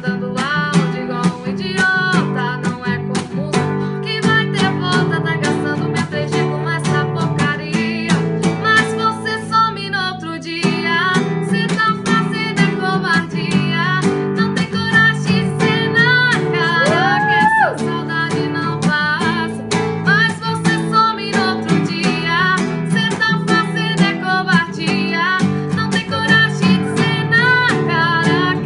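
A song: a female voice singing over an acoustic guitar strummed in a steady rhythm.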